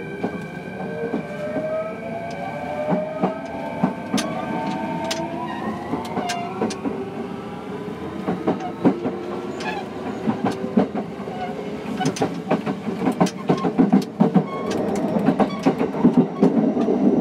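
Kintetsu 3220-series electric train pulling away: its inverter and traction motors whine in several tones that rise steadily in pitch as it gathers speed. Rail-joint clicks come faster and louder toward the end.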